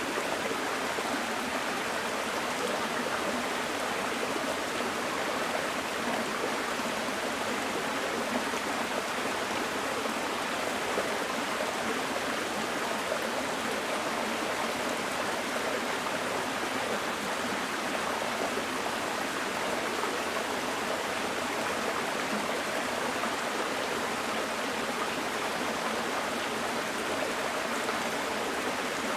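Small mountain stream running over rocks: a steady rushing and burbling of water.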